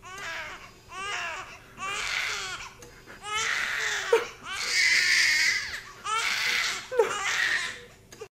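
Newborn baby crying: short wails about once a second at first, then longer, louder wails from about three seconds in, cut off suddenly near the end.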